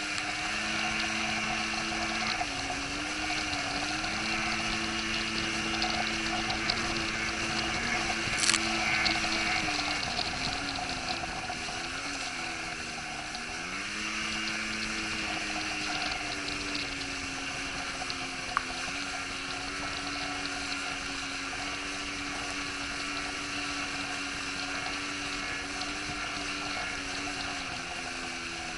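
Boat engine running at speed, its pitch dipping and recovering several times, over a steady rush of water and spray.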